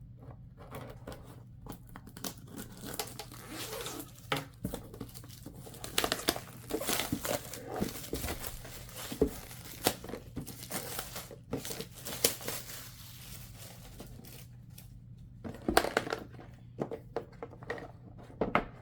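Plastic shrink-wrap being picked at, torn and peeled off a boxed tablet, with irregular crinkling, crackling and tearing, busiest through the middle and again near the end.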